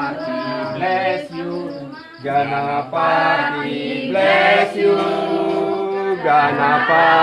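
Several voices chanting together: a Hindu devotional chant sung in long held phrases, with short breaks between the phrases.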